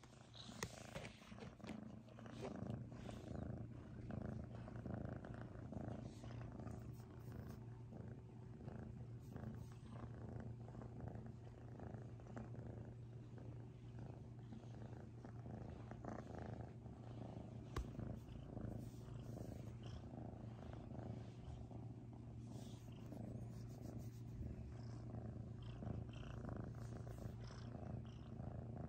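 Kitten purring steadily and continuously.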